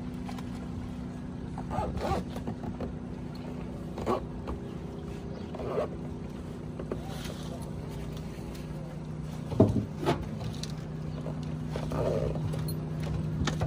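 Boat motor running steadily at trolling speed, its hum dropping to a lower pitch about two-thirds of the way through, with a few short knocks and bumps on board.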